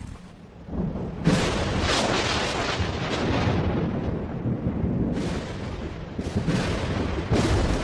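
Thunder: a sudden loud crack about a second in that rumbles on, with further cracks about five and seven seconds in.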